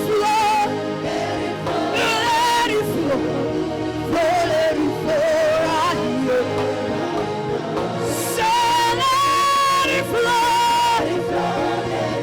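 Gospel worship music with a voice singing long held, wavering notes over the band.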